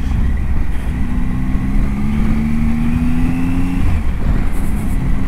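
Adventure motorcycle's engine running on the move, its note climbing slowly from about a second in and dropping away near four seconds, over a steady low rumble.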